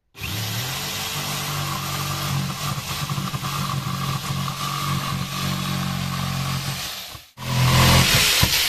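Corded Ryobi jigsaw running with its blade sawing through a wooden floor to cut a round hole. It cuts out briefly about seven seconds in and starts again louder.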